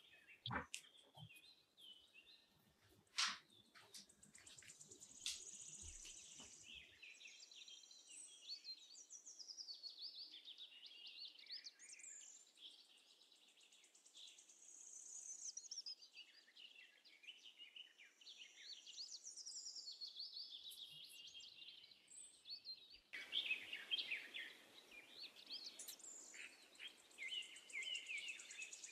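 Faint birdsong: many birds chirping and warbling continuously, with a few sharp clicks in the first few seconds and a soft hiss coming in about three quarters of the way through.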